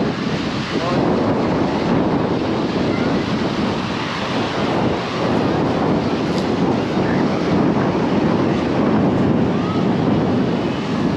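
Wind buffeting the microphone, a loud, steady rushing noise with no clear events.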